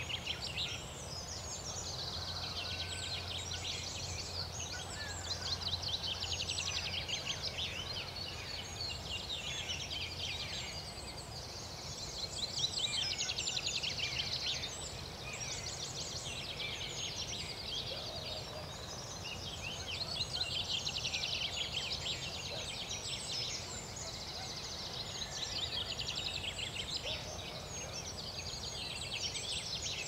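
Dawn chorus over open pasture: many birds sing at once, most of them at a distance, in dense overlapping trills and phrases. The birds noted for this recording are green woodpecker, common buzzard, wood pigeon, chaffinch and wren. A low hum runs underneath and stops about ten seconds in.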